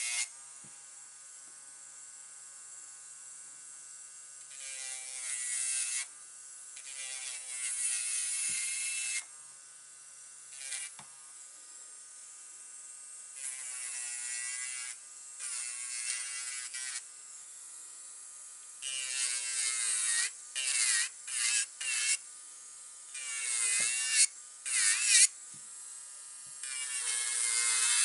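Electric nail drill (e-file) running with a steady whine while its barrel bit files long artificial nails flat. It makes repeated passes of a second or two, each adding a gritty grinding hiss and briefly pulling the motor's pitch down. The passes come shorter and closer together in the last ten seconds.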